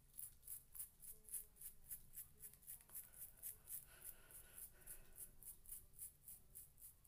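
Faint quick scratchy strokes of a small hair brush swept along the hairline, about four strokes a second.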